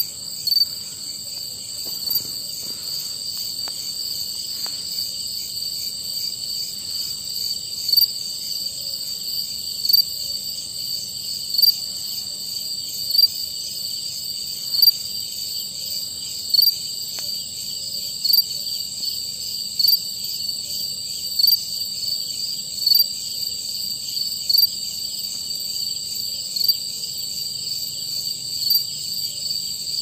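Male cricket singing close by: a short burst about every second and a half stands out over a steady, high-pitched chorus of other crickets.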